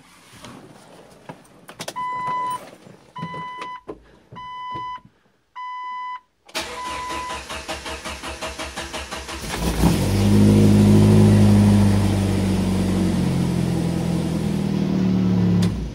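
A dashboard chime beeps four times, then the 1998 Jeep Wrangler TJ's engine cranks on the starter for about three seconds before catching and running steadily, and is switched off near the end. This is a slow-to-fire hard start that persists with a newly fitted MSD ignition coil, better than before but not firing right up.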